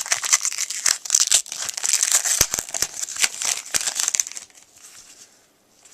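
Foil wrapper of a trading-card pack crinkling and tearing as the pack is opened, a dense crackle that stops about four and a half seconds in.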